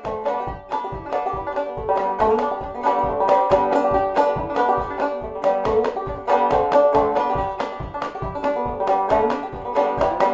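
Five-string banjo played clawhammer style in open G tuning (gDGBD), a quick reel tune in a fast, even run of plucked and brushed notes.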